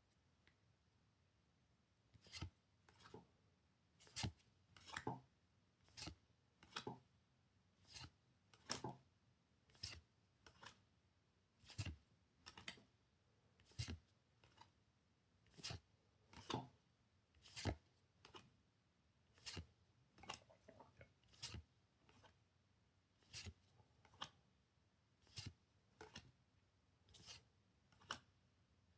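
Trading cards being slid off a stack one at a time: short, quiet swishes and flicks about once a second.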